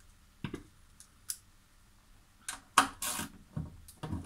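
Irregular metallic clicks and knocks of a wrench working on the 10 mm nuts inside a Lada Vesta door: two single clicks, then a quicker run of clicks and knocks in the second half.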